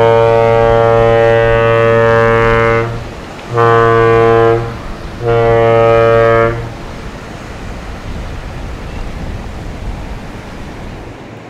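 Ship's horn sounding a single low, steady note: one long blast, then two shorter blasts about a second each. After that only a quieter steady background noise remains.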